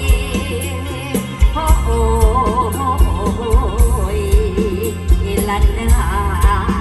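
Live Isan (northeast Thai) folk-pop band music: a singer's ornamented voice wavering up and down in pitch over a steady bass drum beat and cymbal ticks.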